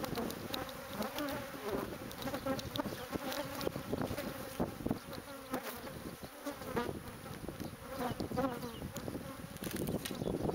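Honeybees from an opened colony buzzing all around in a dense, steady hum, with single bees flying close past. Scattered clicks and rustles run through it.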